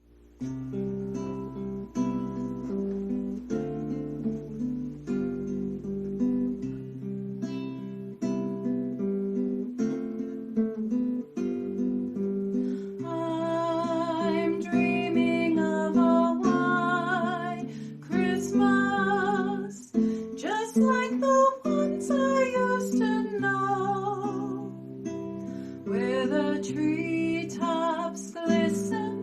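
Acoustic guitar playing a holiday piece, picked chords over a bass line. About 13 seconds in, a wavering melody line with vibrato joins above it.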